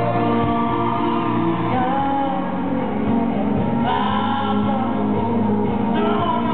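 Live band and singers performing, with voices holding long notes over the band, heard from the seats of an arena.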